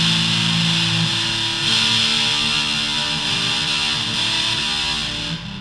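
Electric guitar played through a Joyo Voodoo Octave fuzz pedal: heavily fuzzed chords ringing out with a bright, fizzy edge. A new chord is struck about two seconds in, and the sound cuts away just before the end.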